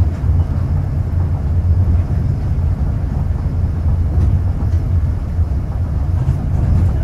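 Running noise heard inside a moving Osaka Metro New Tram, a rubber-tyred automated guideway train: a steady low rumble from the tyres and drive.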